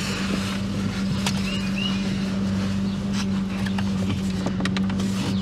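Scattered sharp clicks and knocks of plastic dash trim being worked loose, over a steady low hum.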